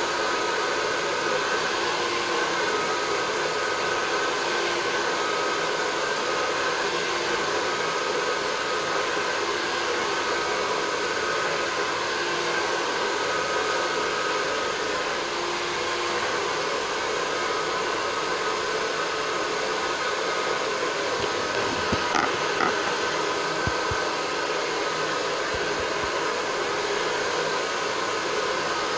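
Handheld hair dryer running steadily, an even blowing rush with a faint steady whine in it.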